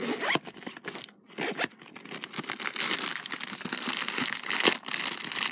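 Soft fabric tripod carrying case being opened and handled by hand, with irregular rustling and crinkling that becomes continuous after about two seconds and a sharp snap a little before the end.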